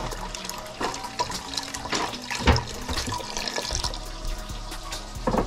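Chicken stock pouring into a pot, a steady splashing of liquid, with a sharp knock about two and a half seconds in.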